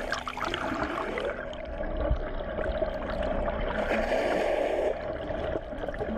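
Underwater recording: water rushing and splashing against the camera housing over a steady drone from the boat's engines and propellers, with scattered clicks.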